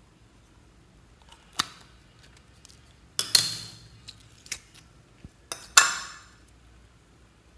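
Hands squeezing and breaking open a clear jelly squishy ball give a few sharp snaps. The two loudest, about three seconds in and near six seconds, each trail off in a short crackle.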